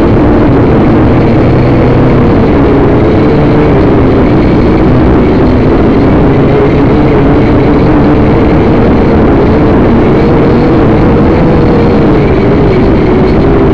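Multirotor drone's propellers and motors humming loudly in flight, a steady whine whose pitch wavers slightly as the drone manoeuvres.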